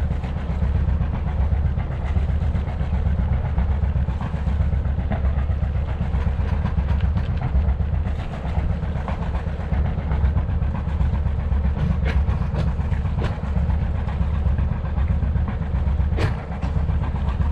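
Sailboat's inboard diesel engine running steadily under way, a continuous low drone. A few light clicks near the end.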